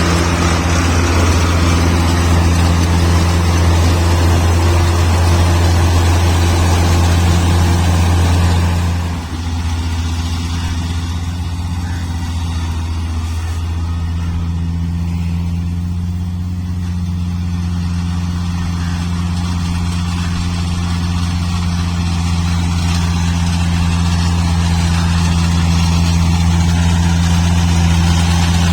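Kubota rice combine harvester's diesel engine running steadily, a constant hum under a broad hiss. About nine seconds in the hiss drops away and the engine runs on more quietly.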